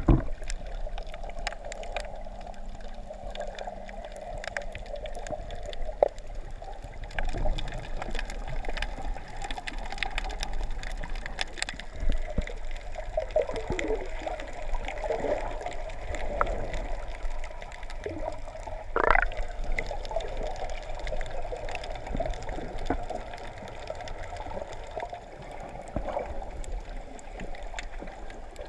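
Muffled underwater water noise from a camera held under the surface: a steady watery rush with scattered clicks and gurgles. There is one short rising gurgle about two-thirds of the way through.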